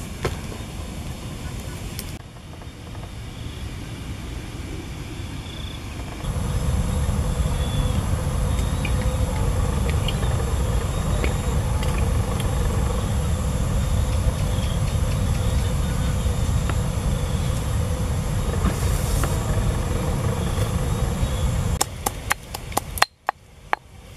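Outdoor background noise: a steady low rumble that grows louder about six seconds in, under a faint, steady high whine, with a few light clicks near the end.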